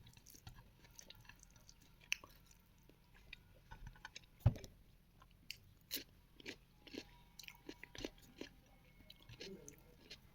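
Close-miked chewing and mouth sounds of a person eating, with many small wet clicks and crunches. One louder, low knock comes about four and a half seconds in.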